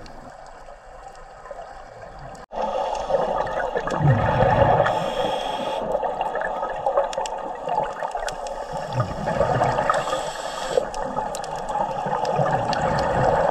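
Scuba breathing heard underwater: a steady hiss with bubbling exhalations from a regulator swelling up about every four seconds. The first couple of seconds are quieter, then the level jumps suddenly.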